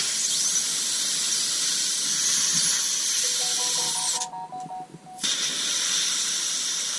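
Compressed air hissing out through the valve of a Tubliss tubeless system's high-pressure inner tube as it is deflated from about 100 psi. It is cut off for about a second some four seconds in, then resumes and slowly weakens as the pressure drops.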